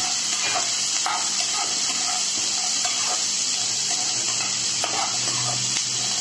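Diced onions and green chillies sizzling as they are sautéed in hot oil and butter in a kadai, with a steady hiss throughout. A metal slotted spatula stirs them, scraping against the pan every second or so.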